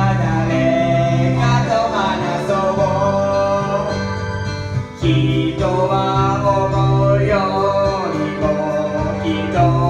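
Karaoke backing track playing, with a person singing along over it; the music dips briefly about halfway through, between sung lines.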